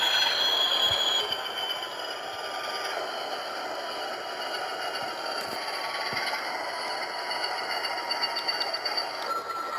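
Model PRR RF-16 diesel locomotive pair running on track, each unit's motor driving it while the DCC sound decoder plays diesel engine sound through the small onboard speaker. It runs steadily, somewhat louder for the first second or so.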